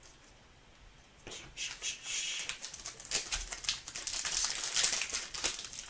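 Trading card pack wrapper crinkling and rustling as it is handled and opened, starting about a second in and going on as a dense run of crackles.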